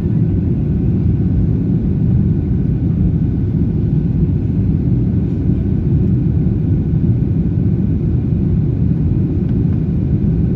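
Airliner cabin noise during take-off: a steady, loud low rumble of jet engines and airflow, with a faint steady whine above it.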